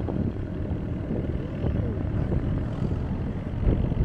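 Wind buffeting the phone's microphone on an open boat deck, a low, uneven rumble that swells and dips.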